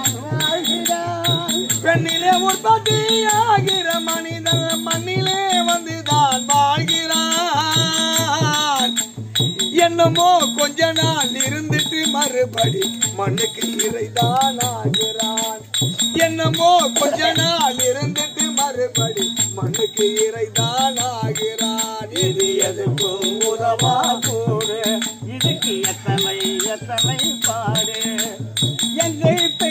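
Therukoothu folk-theatre music: a voice singing a melody over a steady percussion beat with a rattling, jingling accompaniment. There is a short break in the singing about nine seconds in.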